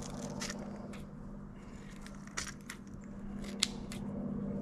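Small scissors of a Swiss army knife snipping tangled carpet fibres away from a fishing lure's treble hooks: a handful of sharp, irregularly spaced snips.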